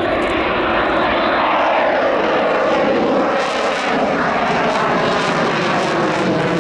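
Eurofighter Typhoon's twin turbofans running at full power in reheat, a loud, steady jet noise overhead. A crackling edge comes in from about halfway through as the jet pulls away.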